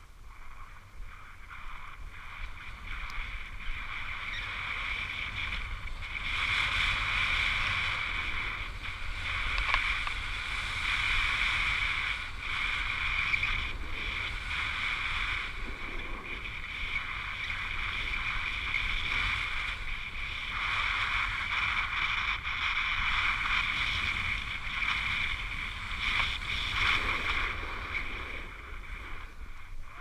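Snow hissing and scraping under a rider sliding downhill, the noise swelling and easing over and over. It gets louder about six seconds in and dies down near the end.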